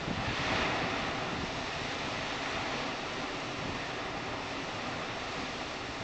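Large storm waves on Lake Superior breaking on the shore. A hissing surge of surf swells about half a second in, then eases into a steady rushing wash.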